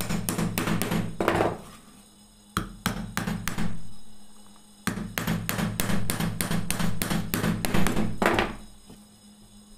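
Small hammer tapping nails into the joints of a light wooden box, in three runs of quick, light blows, several a second; the last run is the longest and stops near the end.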